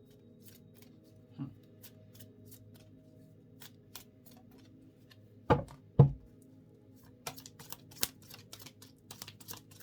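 A deck of oracle cards being handled and shuffled. Scattered light card clicks, then two loud thumps a little past halfway, then a rapid run of card flicks as the shuffling picks up.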